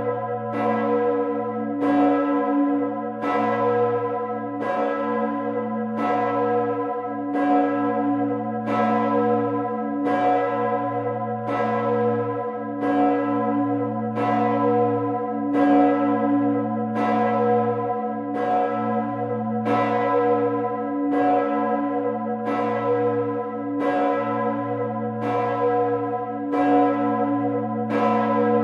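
Gloriosa, the large bronze church bell cast in 1433 (strike note B, about 3.7 tonnes), swinging alone and struck by its clapper a little under once a second. Its deep hum and strike tone ring on steadily between the strokes.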